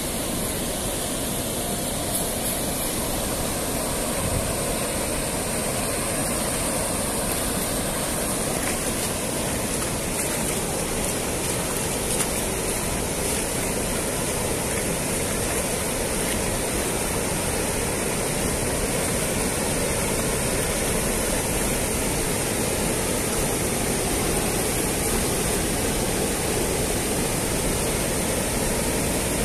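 Steady rush of river water pouring over a low concrete weir, a constant even roar that grows slightly louder toward the end.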